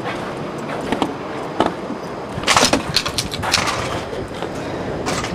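Knocks, clatters and scrapes of storm debris, such as boards and sheet material, being handled and dropped. A few single knocks come first, then a denser run of clattering comes from about two and a half seconds in, over a steady outdoor background hiss.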